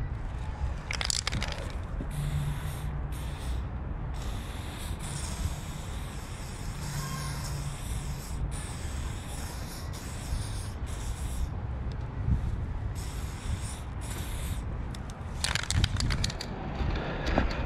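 Aerosol spray-paint can hissing in repeated bursts of a second to a few seconds, stopping and starting as paint is laid on. Near the end there is a run of quick sharp clicks, and a low street rumble lies underneath.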